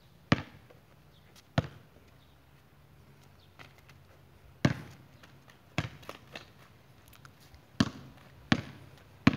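A Molten basketball bouncing on a concrete court: about nine sharp, separate bounces at uneven intervals as it is dribbled and shot.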